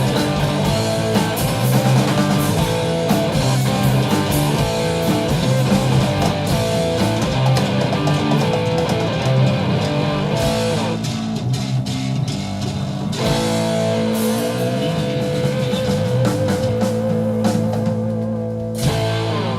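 Live rock band music led by guitar over bass. About eleven seconds in it drops to a thinner passage, then a long held note with vibrato runs until the music stops at the end.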